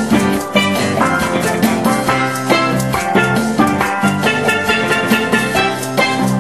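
A band playing live music: a bright, pitched melody over a steady drum beat.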